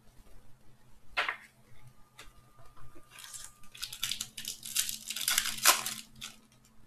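Foil wrapper of a Panini Prizm football card pack being torn open and crinkled by hand, the tearing and crinkling loudest about three to six seconds in.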